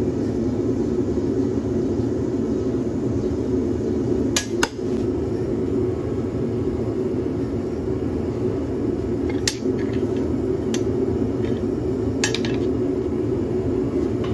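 Gas forge burner running with a steady rushing noise. A few sharp metal clinks of hammer and tongs against the anvil come through it, two close together about four seconds in and the rest in the last five seconds.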